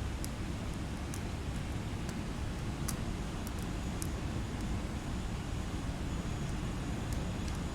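Steady sleep-aid noise track: an even hiss weighted toward a deep rumble, with a few faint high ticks.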